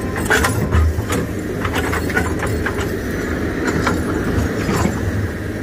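Hydraulic excavator's diesel engine running steadily, with scattered metallic clanks and knocks from the moving bucket and arm.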